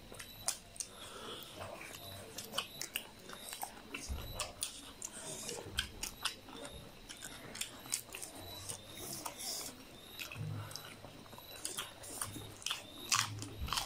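People chewing and smacking their lips while eating rice, egg and curry by hand: a dense run of short, wet mouth clicks and smacks.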